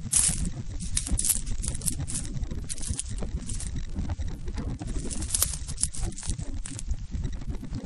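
Wind buffeting the microphone in an uneven low rumble, over frequent irregular crunching and crackling of dry crushed brush underfoot.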